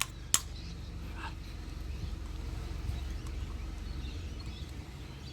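Two sharp clicks at the start and a faint tick about a second later, over a steady low hum; no grinder is running.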